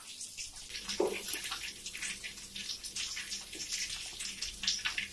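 Hot oil sizzling and crackling around deep-frying quail pieces, a dense run of short, irregular crackles over a steady fizz.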